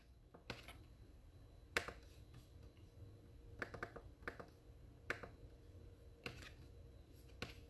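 Faint, scattered clicks of laptop keys and touchpad being pressed: about ten single clicks at an uneven pace, a few in quick succession, the loudest about two seconds in.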